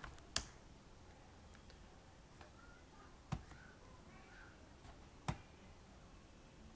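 Isolated computer keyboard key presses: three sharp single clicks a second or two apart, with a couple of fainter taps, over quiet room hiss.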